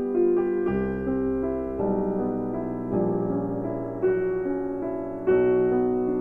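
Background solo piano music: slow single notes and chords, each ringing on as the next is struck.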